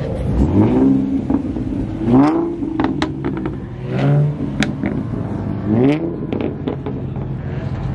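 Car engines revving as cars drive slowly past, the revs rising sharply about every two seconds over a steady low engine rumble. A few sharp pops are mixed in.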